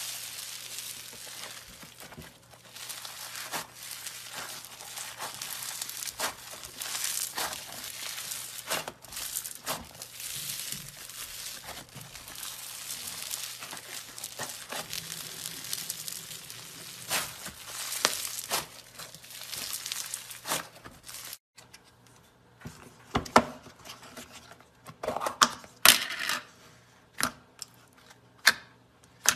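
Floam slime, full of tiny foam beads, stretched, folded and squeezed by hand, giving a dense, steady crunchy crackling. About 21 seconds in it cuts to clear glitter slime pressed and poked in a plastic tub: quieter, with a handful of sharp wet pops and clicks.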